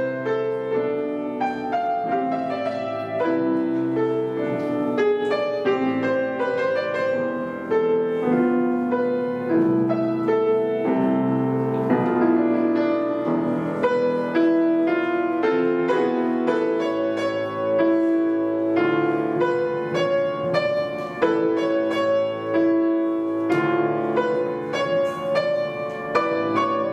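Piano music: a continuous passage of many quickly struck notes, several sounding together.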